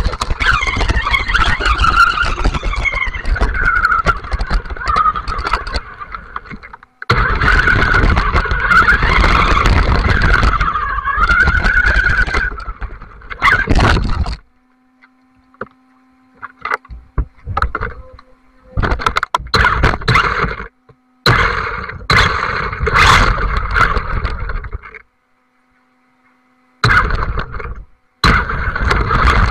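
Onboard sound of a WLtoys electric RC buggy driving over rough wet ground: the motor and gears whine, rising and falling with the throttle, over a rumble from the tyres and chassis. From about halfway the sound cuts out several times, coming back in short loud bursts.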